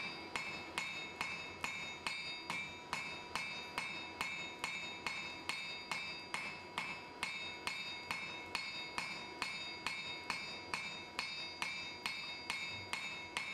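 Cross-peen hammer striking red-hot steel on an anvil in a steady run of about two to three blows a second, each blow with a short metallic ring. The peen is spreading the hatchet's cheeks sideways.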